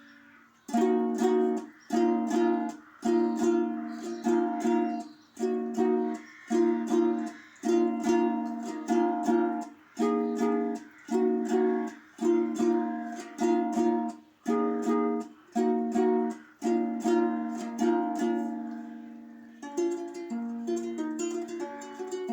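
Solo ukulele playing an instrumental passage: short, sharply strummed chords in separate bursts about once a second with brief silences between them. Near the end it changes to a continuous run of quicker picked notes.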